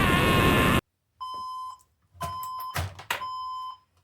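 A loud rushing noise cuts off abruptly about a second in, followed by four short electronic bleeps of one pitch, each about half a second long, with dead silence between them and a couple of thuds in the middle: edited-in censor bleeps over a frustrated outburst.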